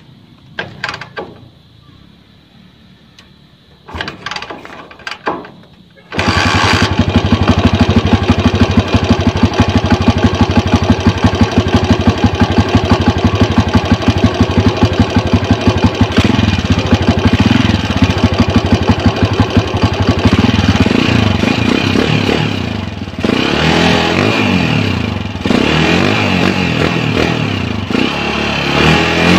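A Honda TMX 155's single-cylinder pushrod engine, fitted with a reground cam, starts about six seconds in and runs with a fast, even beat, its speed changing a few times later on. The carburettor is out of tune: it is a borrowed RS125 carb.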